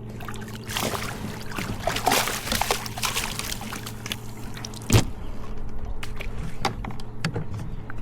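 Water splashing and trickling, with one sharp knock about five seconds in and a steady low hum underneath.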